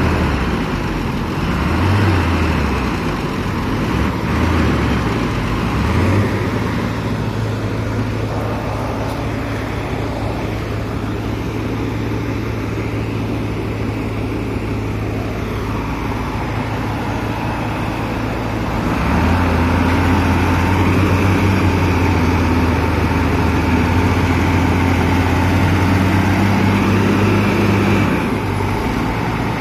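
Diesel engine of a loaded dump truck stuck in mud, revved in several short bursts, then held at steady high revs as it strains to pull out. It gets louder about two-thirds through and eases back near the end.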